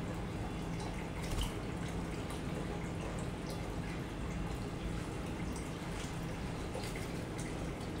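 Aquarium water trickling and dripping steadily, with a low pump hum under it and scattered small clicks.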